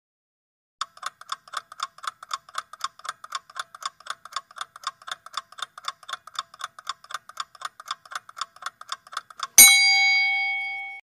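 Quiz countdown-timer sound effect: rapid clock ticking, about four ticks a second, ending in a loud bell ding that marks time up. The ding rings on for about a second and a half, then cuts off.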